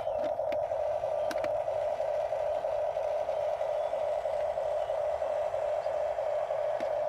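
Small electric motor of a radio-controlled toy construction vehicle running with a steady whining hum that pulses evenly, with a few light clicks near the start.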